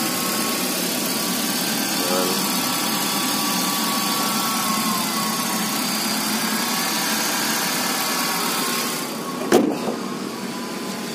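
Kia Cerato's 1.6-litre petrol engine idling steadily, heard with the bonnet open. A single sharp thump comes about nine and a half seconds in, after which the engine sound is a little quieter.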